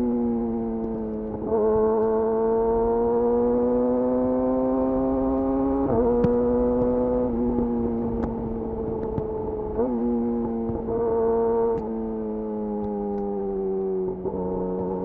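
Yamaha YZF-R6 inline-four running through a de-catted Akrapovic slip-on exhaust, held at steady high revs while riding, its pitch drifting slowly with a few brief jumps and dips as the throttle and gears change.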